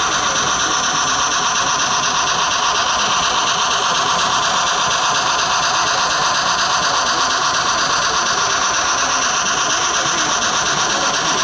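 G-scale model steam locomotive's sound system giving a steady hissing steam chuff as the engine runs past, over hall noise.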